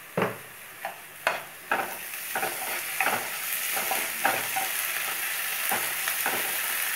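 Steel spoon stirring chopped onions, green chillies and freshly added ginger-garlic paste frying in oil in a nonstick kadai, knocking and scraping against the pan. The sizzling grows louder about two seconds in as the mixture is turned.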